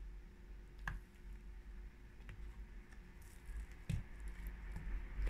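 Faint handling sounds of craft materials being worked by hand: soft rustling, with a light click about a second in and another near four seconds.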